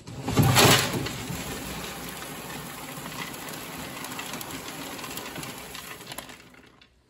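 High-protein grain feed pouring from a metal chute onto a stainless steel feed bowl: a loud rush in the first second, then a steady hiss of falling grain that fades out near the end.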